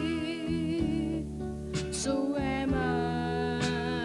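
A young man singing a slow song into a microphone over instrumental backing, holding his notes with vibrato.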